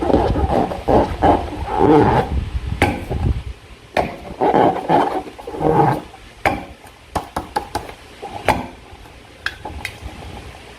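Slime being squished and stretched: wet squelching, loudest in the first two seconds and again about halfway through, broken by sharp sticky clicks and pops that come more sparsely toward the end.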